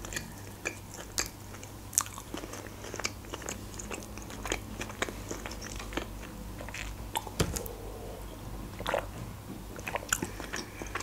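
A person chewing a mouthful of burger close to the microphone: a steady, irregular run of small mouth clicks and smacks.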